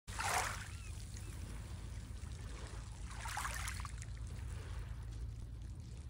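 Small waves lapping onto a pebble beach on a calm sea: two washes of water over the stones, about three seconds apart, the first the louder. Under them runs a steady low rumble.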